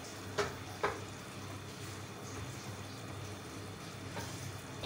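Beef qeema simmering in a pot with a little added water, green chillies and mint, giving a soft, steady sizzle and bubbling. Two small pops come in the first second.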